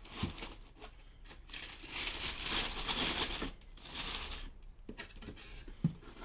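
Tissue paper rustling and crinkling as it is folded over a sneaker inside a cardboard shoebox, loudest in the middle. A short cardboard knock near the end as the box lid is handled.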